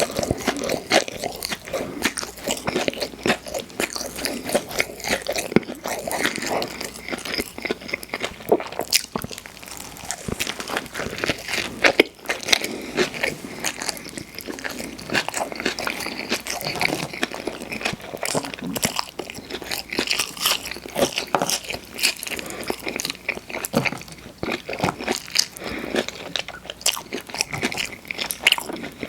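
Close-miked mouth sounds of someone biting and chewing fast food: wet chewing with many irregular crunches and crackles.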